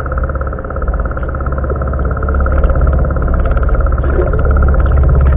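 Boat engine running, heard from underwater: a steady low drone with a high whine, growing louder toward the end.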